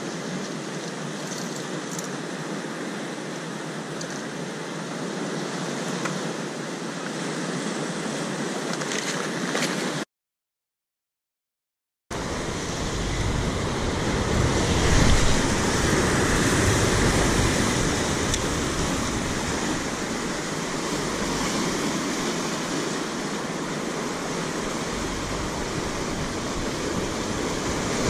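Sea surf washing and breaking over coastal rocks, a steady rush of noise. The sound drops out completely for about two seconds partway through, then comes back louder, with more low rumble.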